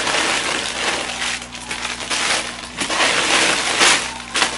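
Thin plastic packaging bags crinkling and rustling in irregular crackles as hands rummage through plastic-wrapped solar garden stake lights.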